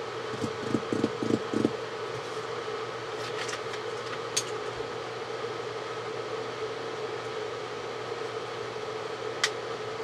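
A steady hum runs throughout under light handling noise: a handful of soft taps and clicks in the first two seconds, a few more around three to four and a half seconds in, and one sharp click near the end, as the small parts of a disassembled USB soldering iron are handled.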